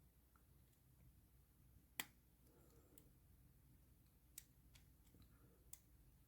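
Near silence broken by a few light clicks, the sharpest about two seconds in.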